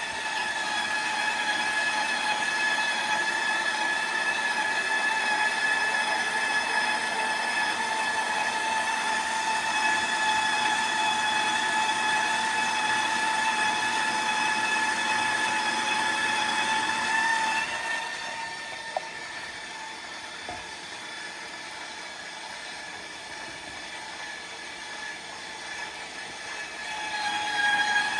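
KitchenAid stand mixer running a shredder attachment through a block of frozen cheese: a steady, high mechanical whine from the motor and gears. About two-thirds of the way through, the whine drops away to a quieter hum, and it comes back shortly before the end.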